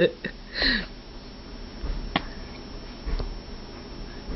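Five-month-old baby hiccuping: a short voiced hiccup less than a second in, then sharp click-like hiccups about two and three seconds in.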